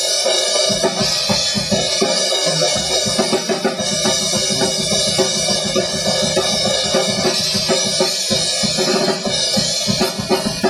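Drum kit playing a beat: regular kick and snare hits under a constant wash of cymbals.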